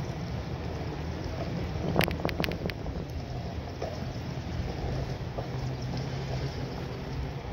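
Wind buffeting the microphone and rolling noise from a bicycle being ridden, a steady low rumble. A quick run of sharp clicks or rattles about two seconds in.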